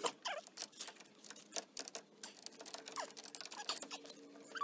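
Hands and a cloth rag handling and rubbing galvanized steel and PVC water-pipe fittings: irregular scratchy clicks and rustling, with a few short squeaks. This is the hand work of checking a leaking hot-water line at its fittings.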